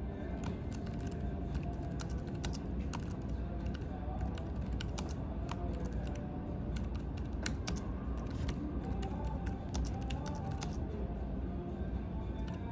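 Continuous typing on the Freewrite Traveler's keyboard: an irregular run of several key clicks a second over a steady low background rumble.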